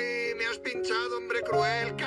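A man wailing and crying out in pain, his voice gliding up and down, over background music with steady held tones.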